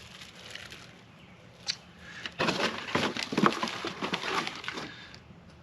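Packaging being crumpled and handled: a dense, irregular crackling rustle that starts about two and a half seconds in and stops shortly before the end, after a single sharp click.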